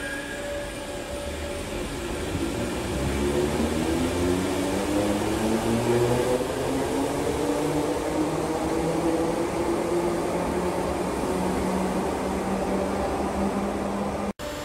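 Merseyrail Class 507 electric train pulling out of an underground platform. Its traction motors whine, rising in pitch as it gathers speed, over the rumble of wheels on rail.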